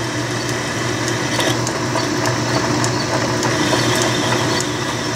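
Logan metal lathe running, its round-nose tool taking a hand-fed cut across the head of a soft steel bolt held in the three-jaw chuck. It makes a steady machine hum with the scrape of the cut and a few faint ticks.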